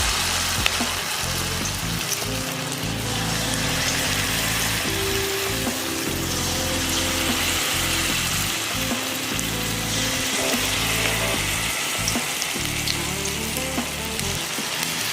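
Mangalore bonda batter balls deep-frying in a pan of hot oil: a steady sizzle with small crackles throughout, under background music.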